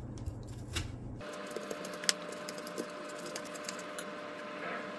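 Kitchen knife cutting melon rind on a cutting board, scattered light clicks as the blade meets the board. A faint steady hum with one constant tone starts about a second in.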